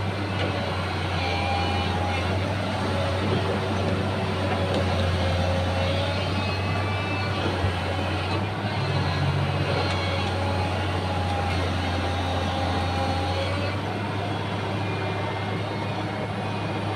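Excavator's diesel engine running steadily, with a whine above it that wavers up and down.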